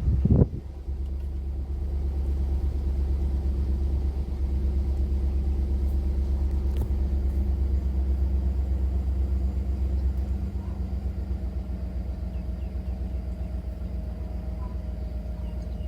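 2008 GMC Yukon V8 catching with a brief loud burst just after the starter, then idling steadily from a cold start, the idle easing down slightly about ten seconds in. Its bank 2 sensor 1 oxygen sensor is unplugged, and it runs without the cold sputter and stall, pointing to a faulty oxygen sensor reading or a short in its wiring as the cause of the misfire.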